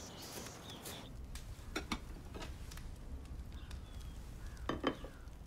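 A few sharp clinks and knocks of china as a ceramic casserole dish and its lid are handled on a wooden table. The loudest knock comes near the end, over a faint low room hum.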